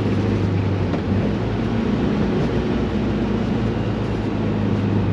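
Standard 1600cc Volkswagen Beetle's air-cooled flat-four engine running at steady revs on track, its pitch shifting slightly a few times, with wind and road noise.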